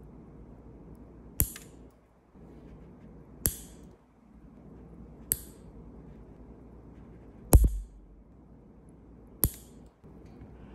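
Five sharp clicks about two seconds apart over a faint hiss; the fourth, a little past halfway, is the loudest and carries a low thump.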